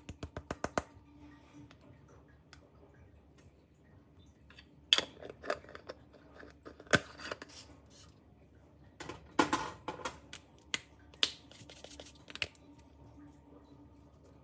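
Light metallic taps and clicks of a small metal measuring spoon against a stainless-steel mixing bowl as chili powder is knocked out of it. There is a quick run of about eight taps at the start, then scattered single knocks and short clusters.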